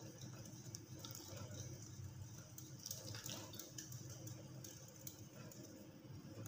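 Faint scratching and light ticking of a wire whisk stirring gram flour and water into batter in a glass bowl.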